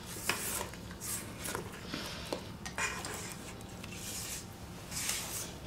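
Silicone spatula scraping the sides and bottom of a stainless-steel stand-mixer bowl of thick creamed cream cheese and sugar, in repeated strokes about one a second, with the mixer off.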